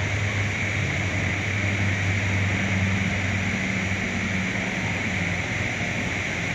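Steady rushing noise with a low hum under it that fades about five seconds in.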